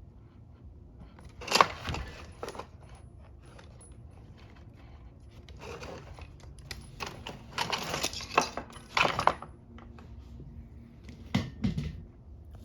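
Scattered metallic clinks and knocks of hand tools and small parts being handled, with a busy cluster of rattling about two-thirds of the way through.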